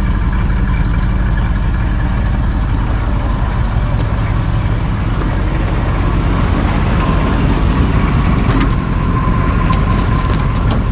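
Engine of a 1973 Camper Special pickup idling steadily. A thin steady whine joins about seven seconds in.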